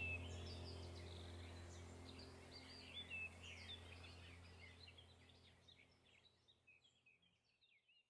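Faint birdsong, many quick high chirps, over a low steady hum, the whole sound fading away gradually.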